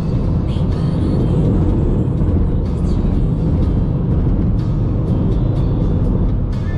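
Cabin noise of an F56 Mini Cooper S's turbocharged four-cylinder at steady highway speed: a constant low engine drone mixed with road and wind noise, with a few light clicks.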